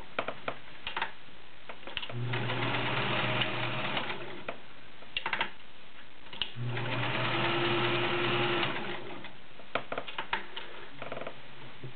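Kenmore 1430 all-metal sewing machine stitching through six layers of denim, running in two steady spells of about two seconds each, with scattered clicks in between and afterwards. It sews the thick stack with a nice consistent stitch.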